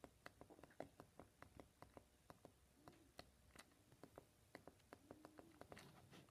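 Near silence broken by faint, irregular clicks and taps, several a second.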